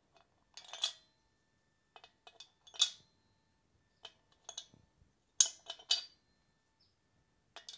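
Small metal parts clinking in the hand and against a Porsche 912 cylinder head as they are set onto its studs. The clicks are light, scattered and ring briefly, with the loudest about five and a half seconds in.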